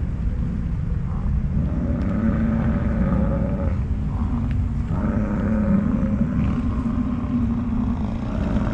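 Bull American bison bellowing in the rut: two long, deep roars of about two seconds each, over a steady low rumble.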